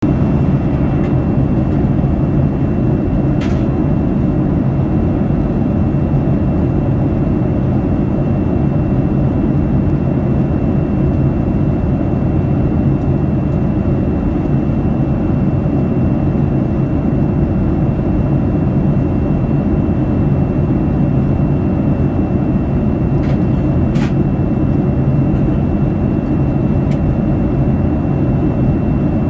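Boeing 787 Dreamliner cabin noise in the climb: the steady drone of engines and airflow, mostly a low rumble, with a faint high steady whine over it. A few faint clicks come through it, the loudest about 24 seconds in.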